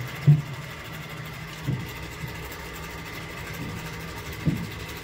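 Electric fan running with a steady hum and a thin whine, making a lot of noise. Three short thumps cut across it, the loudest near the start.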